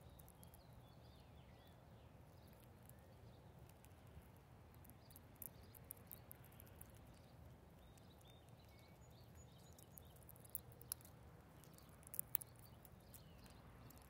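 Faint chirps and short calls of small birds over a low steady background rumble, with scattered sharp clicks and taps, a few louder ones late on.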